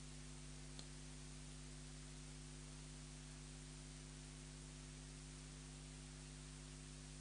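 Near silence: a steady hiss with a low hum, and one faint click about a second in.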